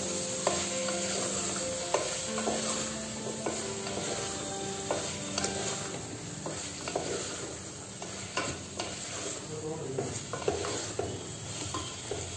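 Vegetables and masala sizzling in an open aluminium pressure cooker, stirred with a wooden spatula that scrapes and knocks against the pot about once a second.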